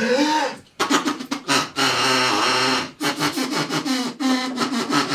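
A man beatboxing into his cupped hands: rhythmic, breathy mouth and voice sounds in pulses, with a short break just before a second in and another about three seconds in. It sounds like someone dying.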